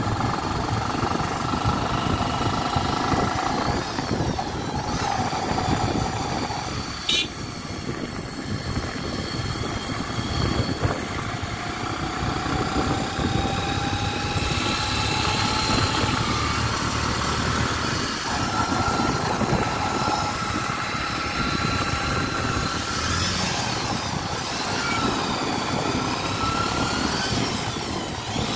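Motorcycle engine running while riding, heard from on the bike, its pitch slowly rising and falling with speed over a steady rushing road and wind noise. A single sharp click comes about seven seconds in.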